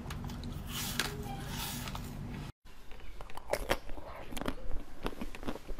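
Soft wet biting and sucking of jelly from a tube over a steady low hum; after a sudden cut about two and a half seconds in, louder crunching and chewing of a frozen chocolate bar, with quick irregular crackles.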